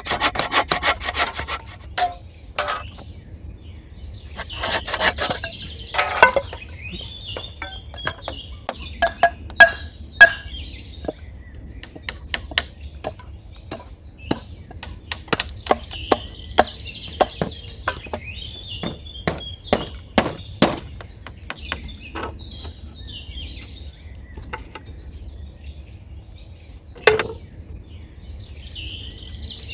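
A saw cutting wood in quick strokes at the start and again about five seconds in. Scattered sharp knocks and taps of wood being worked follow, the loudest about ten seconds in. Birds chirp in the background.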